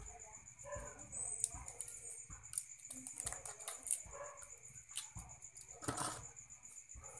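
Small clicks and crackles of a boiled balut duck egg's shell being cracked and picked off by hand, the pieces dropped into a plastic bowl, with a sharper click about six seconds in.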